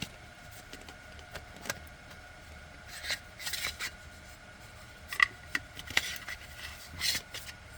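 Small clicks, taps and scrapes of a Fanttik F2 Master mini rotary tool and its storage case being handled as the tool is slid back into the case and pressed into place, with a sharper click about five seconds in. A faint steady hum runs underneath.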